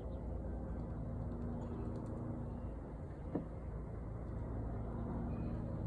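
An engine running with a steady low drone that grows a little louder toward the end, and a single brief knock about three and a half seconds in.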